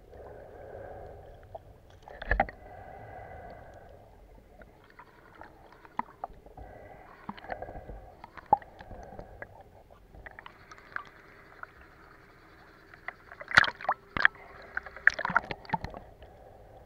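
Muffled underwater sound picked up by a submerged camera: a faint steady hum and water noise, broken by sharp clicks and knocks, with a cluster of louder knocks near the end.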